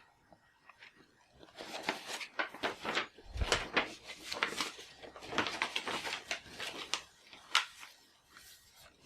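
Packaging being handled at close range: a few seconds of irregular crinkling, rustling and sharp clicks.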